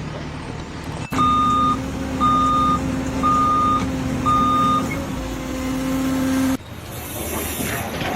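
A vehicle's reversing alarm beeping four times, about one beep a second, over a steady engine hum, beginning and ending abruptly.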